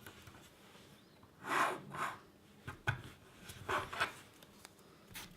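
Grip tape being worked onto a wooden fingerboard deck: a few separate scraping rubs, then quick repeated rubbing strokes, about four a second, starting near the end.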